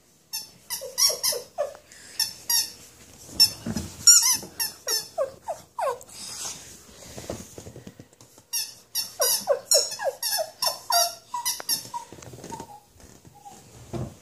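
A squeaker toy squeaked over and over in quick flurries as a dog chews it, with a short lull in the middle.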